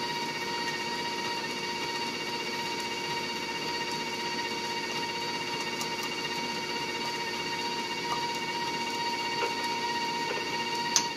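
Electric mixer motor running steadily with a constant whine while mixing cake batter. A single sharp tap near the end.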